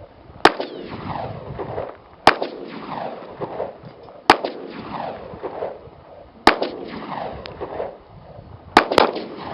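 Gunshots: six shots about two seconds apart, the last two in quick succession, each trailing off in an echo.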